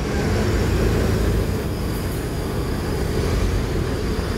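Mercedes-Benz OH 1526 coach's diesel engine running as the coach drives slowly past, a steady low rumble with tyre noise.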